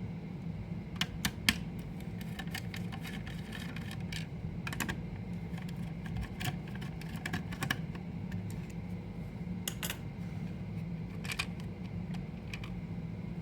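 Irregular small clicks and taps of hands handling a mini PC's plastic and metal casing and parts, over a steady low hum.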